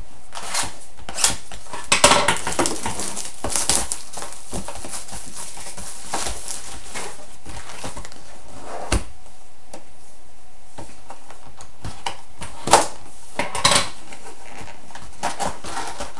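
A sealed 2011-12 Upper Deck SPx hockey card box being opened and its packs taken out: irregular crinkling, tearing and cardboard rustling, with the sharpest crackles about two seconds in and again near thirteen seconds.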